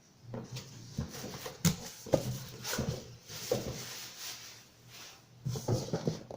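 Packaging being opened and handled: irregular knocks, scraping and rubbing, with a steady low hum underneath.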